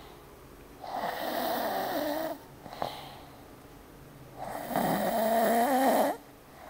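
A man snoring like a pig: two long snores about three and a half seconds apart, each lasting about a second and a half.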